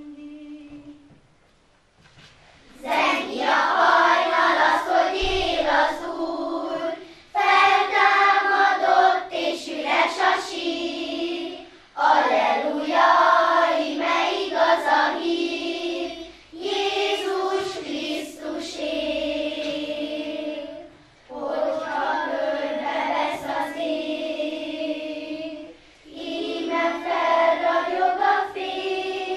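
Children's choir of girls singing unaccompanied in unison-style phrases of about four seconds each, with short breathing pauses between them. A brief held note sounds just before the singing begins, about three seconds in.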